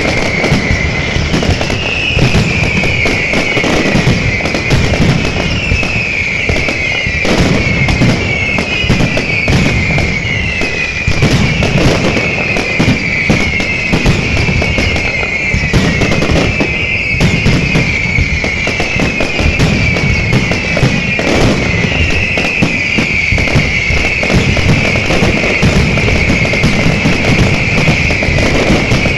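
Fireworks display: continuous bangs and crackling bursts, with a high whistle-like tone that falls in pitch and repeats about once a second throughout.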